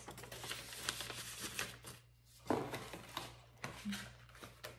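Paper and cardstock packaging rustling and crinkling as it is handled, with small scrapes and taps.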